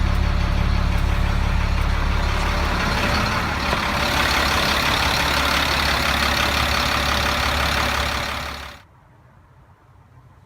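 A 1999 Freightliner truck's diesel engine idling smoothly with no surging. About three seconds in, the deep steady hum gives way to a more hissing sound, and the sound cuts off abruptly near the end.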